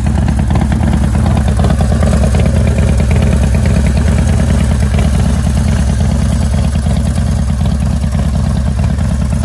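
Harley-Davidson 110 cubic inch Twin Cam V-twin idling steadily and loudly, with an even low pulsing beat.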